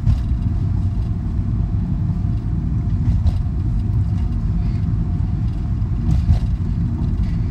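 Car driving at a steady speed, heard from inside the cabin: a low, even rumble of engine and road noise, with a couple of faint clicks about three and six seconds in.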